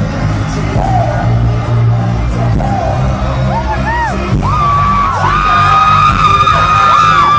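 Loud live pop music with a heavy bass beat, echoing in a large hall. About halfway through, a long high-pitched held voice (a belted note or a scream) comes in over it, with whoops and yells.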